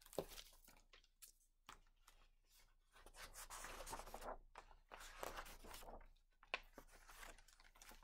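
Faint rustling of paper as a picture book's pages are handled and turned, with a few light clicks.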